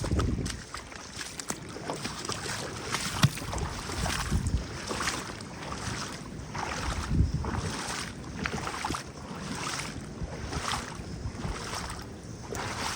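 Sea water washing and splashing on a rocky shore in repeated washes about once a second, with wind rumbling on the microphone.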